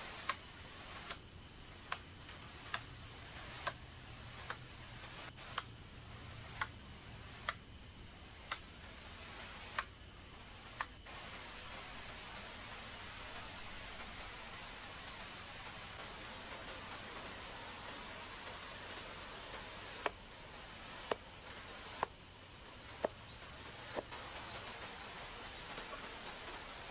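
A machete chopping wood, one sharp strike about every second for roughly the first eleven seconds, then five more strikes near the end. A steady, high, pulsing insect chorus runs under it.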